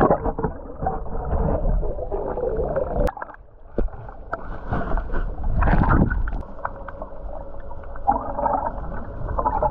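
Muffled underwater sound from a camera held below the surface: water rushing and gurgling over the housing, with a few sharp knocks.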